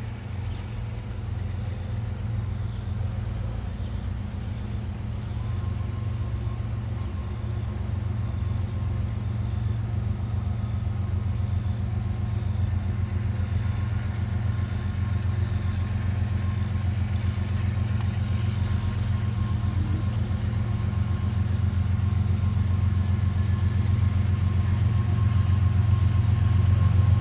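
Diesel locomotive engine of a slow-moving train, a steady low rumble that grows steadily louder as it approaches.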